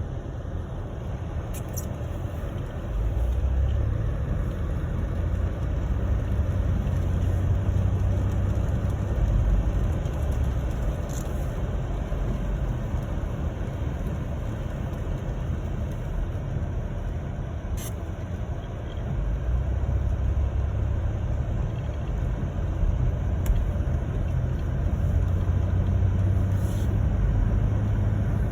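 Car driving: a steady low rumble of engine and road noise that swells and eases every few seconds, with a few faint ticks.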